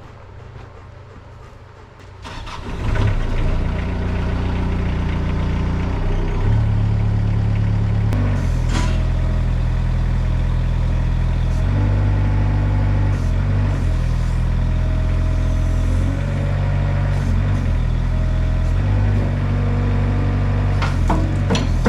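Engine of the bucket machine running loud from about two and a half seconds in, its pitch stepping up and down several times as it works, while the freshly rebuilt hydraulic cylinder is tested for leaks.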